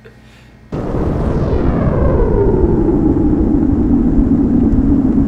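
Production-logo sound effect: a sudden loud rumbling whoosh whose pitch falls over about two seconds and then holds as a steady low drone.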